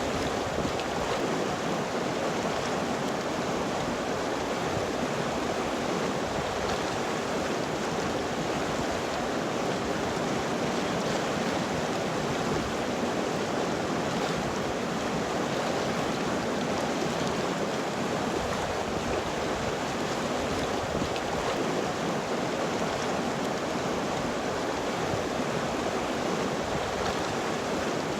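River water flowing steadily, an even rushing over rocks with no breaks or changes.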